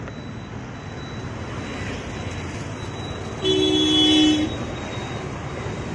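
Street traffic noise with a vehicle horn sounding once, a steady honk about a second long roughly midway through.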